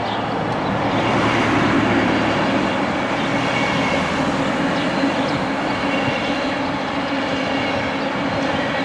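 A train passing at speed close by: a loud, steady rush of wheel and rail noise with faint whining tones, cutting in suddenly at the start.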